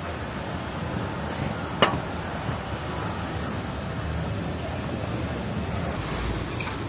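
Steady rushing outdoor background noise with a single sharp knock about two seconds in.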